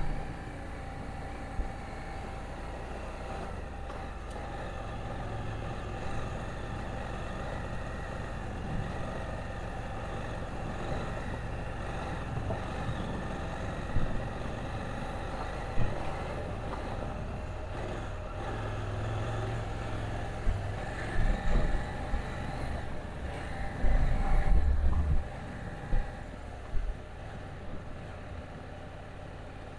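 KTM 790 Adventure's parallel-twin engine running at fairly steady low revs while the motorcycle is ridden over rough, slippery dirt, with scattered low thumps, most of them in the second half.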